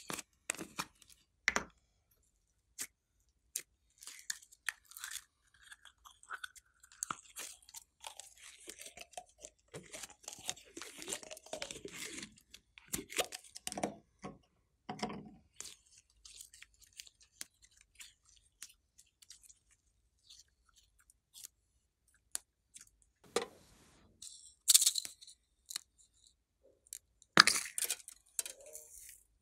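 Green slime squeezed out of a plastic squeeze bottle and worked by hand: irregular sticky squelches and crackles, with scattered sharp plastic clicks. Near the end come two louder clicks as the lid is pulled off a small plastic container.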